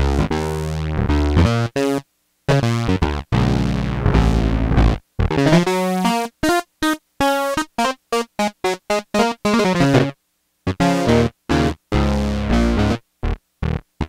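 Black Corporation ISE-NIN polysynth playing a preset dry, with no reverb. Held chords come first, then from about halfway a quick run of short staccato notes, and the notes cut off sharply into silence between phrases.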